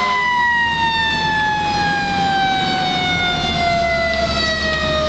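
Fire engine siren wailing, its pitch falling slowly and steadily, with the truck's low engine rumble beneath.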